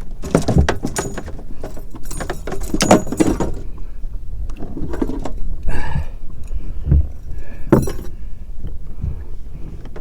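Rattling and clattering of gear being handled in a fishing boat, in several short bursts with a few dull knocks.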